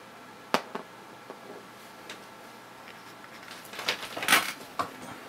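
Small clicks and knocks of a tiny wireless camera module being handled and set down on a tabletop: one sharp click about half a second in, then a cluster of louder knocks about four seconds in.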